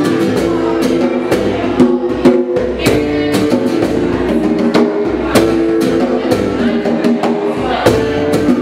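Live instrumental passage: acoustic guitar playing chords with bongos tapping a steady rhythm over it.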